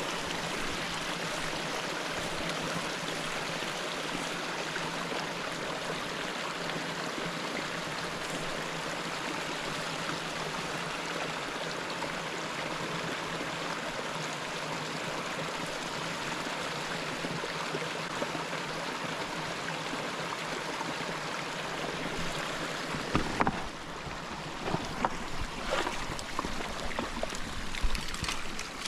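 A small mountain brook running steadily, its water rushing and splashing over rocks and little cascades. About 23 seconds in the water sound drops slightly, and a run of short, sharp knocks comes in over it.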